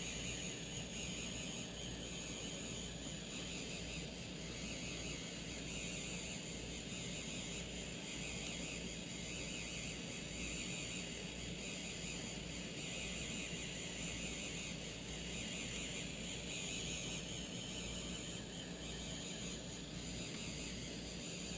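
Handheld 3D printing pen's filament-feed motor running steadily, a faint even whir with hiss and no breaks.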